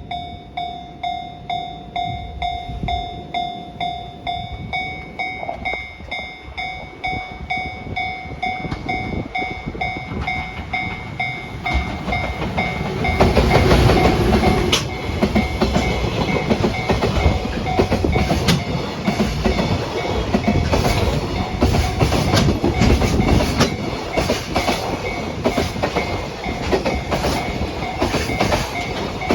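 Level crossing warning bell ringing in a steady pulsing rhythm. About twelve seconds in, a freight train hauled by a JR Freight EF210 electric locomotive passes through the crossing and grows loud, its wheels clattering over the rail joints while the bell keeps ringing under it.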